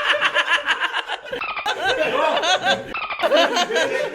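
A group of people laughing hard: rapid ha-ha pulses from several voices overlapping.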